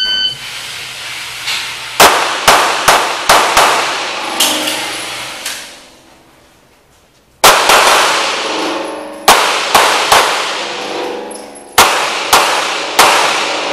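Handgun shots at an indoor range, each with a long echo off the concrete walls: a short beep at the start, then rapid strings of shots, a pause of about a second and a half midway, then more rapid strings.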